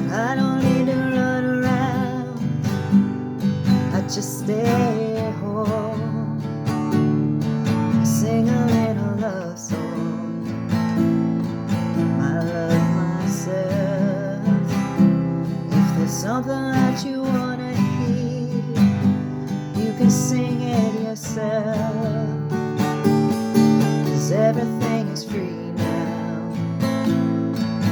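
Acoustic guitar in drop tuning strummed through an Am, C, G, D chord progression, with a voice carrying a wavering melody over it without clear words.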